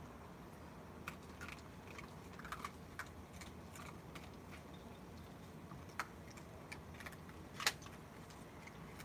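Scattered light clicks and taps as a raccoon climbs a metal pole and picks at dry food in a plastic tray. The sharpest tap comes a little past two-thirds of the way through.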